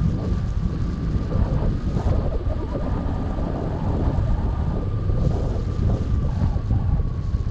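Airflow over the microphone of a camera mounted on a hang glider in flight: a heavy, gusty wind rumble, strongest in the low end. A faint steady high tone runs underneath.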